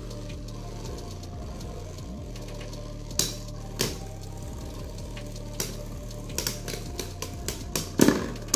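Two Beyblade Burst spinning tops, Brave Valkyrie and Samurai Pegasis, whirring in a plastic stadium and clashing with sharp clicks. There are two hits about three seconds in, then a quick run of clicks, and the loudest collision comes near the end.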